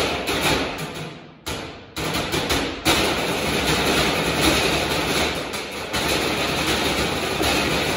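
A percussion quartet drumming on galvanized metal trash cans in a dense, rhythmic pattern of metallic hits. About a second in, the playing dies away into a brief break with a single hit, then resumes with a loud strike about three seconds in.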